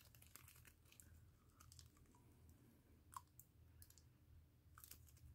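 Near silence: quiet room tone with a few faint clicks, one a little louder about three seconds in.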